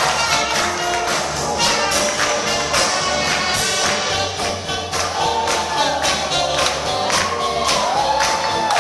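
Live band music with a steady quick drum beat and a melody line over it.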